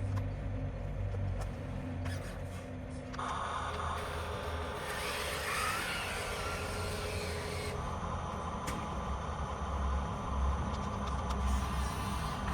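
Small electric motors and gearboxes of radio-controlled toy construction vehicles whirring over a steady low rumble; a higher whine comes in about three seconds in and grows noisier for a few seconds before settling back to a steady whine.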